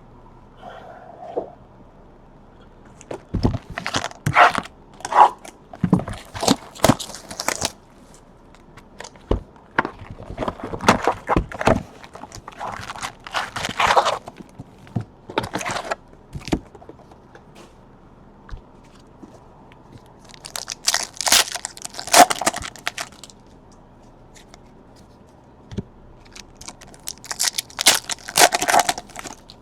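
Crinkly plastic wrappers of trading card packs being torn open and crumpled by hand, in several separate bouts of ripping and crackling.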